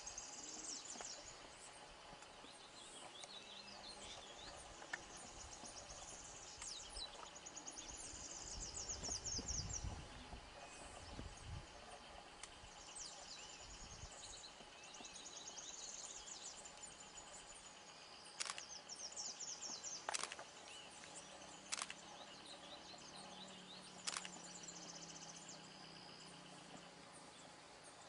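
Faint forest ambience: repeated high chirps and trills of birds and insects. A few sharp clicks come about two-thirds of the way through, and there are low rumbles around the middle.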